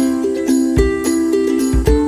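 Background music: a bright plucked-string tune, ukulele-like, with a regular kick-drum beat and light jingles.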